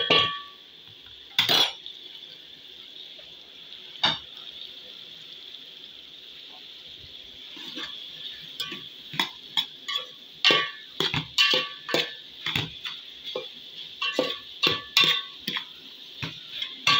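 A metal spoon stirring sliced okra in a metal pot, scraping and clinking against the sides in a quick run of knocks from about halfway on. A faint steady sizzle of the frying food lies underneath, with a couple of single knocks in the first seconds.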